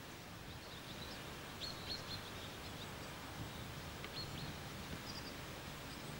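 Small birds giving short, high chirps, a cluster about two seconds in and a few more around four to five seconds, over a steady outdoor background hiss.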